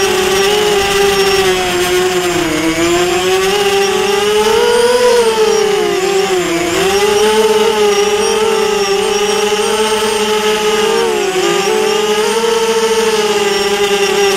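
Electric motors and propellers of a small radio-controlled aircraft, heard from its onboard camera: a steady whine whose pitch rises and falls with the throttle, dipping and climbing several times.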